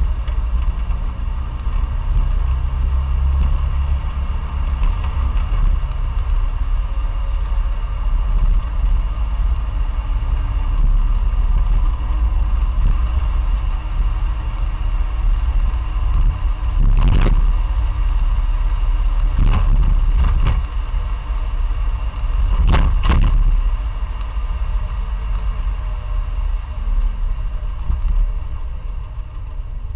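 Classic Fiat 500's air-cooled two-cylinder engine running steadily under way, with a low road rumble. Several sharp knocks or clatters a little past halfway, the last two close together.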